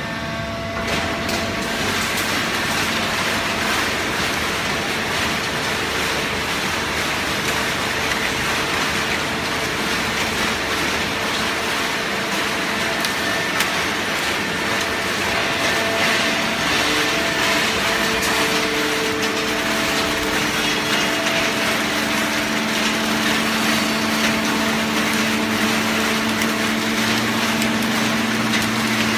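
Fully automatic horizontal hydraulic baling press running, giving a steady mechanical noise with a few steady tones in it; a lower steady hum grows stronger in the last third.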